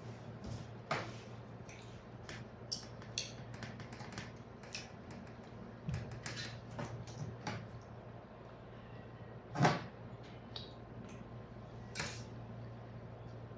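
Eating at a meal: chewing and mouth noises with scattered clicks and taps of fingers and a spoon on stainless steel food trays, one louder knock about ten seconds in, over a steady low hum.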